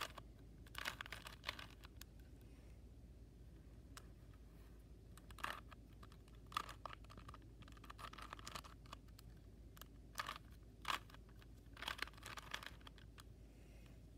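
Rubik's Cube layers being turned by hand: short bursts of plastic clicking and rasping, in irregular clusters separated by pauses.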